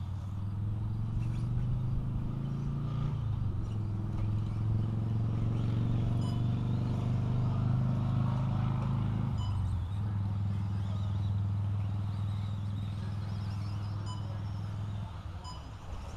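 A steady low engine hum that shifts pitch twice and drops away near the end. Under it come the fainter motor whine and tyre noise of radio-controlled cars racing on a dirt track.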